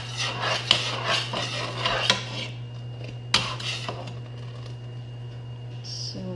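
A metal spoon stirring and scraping in a cooking pot of the simmering coconut-milk mixture, with a few clinks against the pot. The scraping stops about two and a half seconds in, and one more clink comes shortly after.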